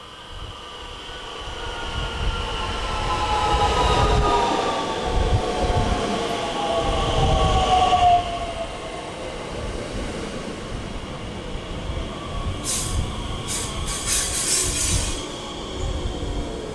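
Bombardier Talent 2 (class 442) electric train pulling slowly into the platform: the whine of its electric drive falls in pitch as it brakes, growing loud as the train comes alongside, then settles into a steady rumble of wheels. A few short high-pitched bursts come near the end.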